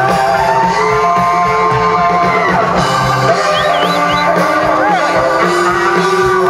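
A live rock band with saxophone, trombone, organ, electric guitar, bass and drums, playing an instrumental stretch with long held notes over a steady beat.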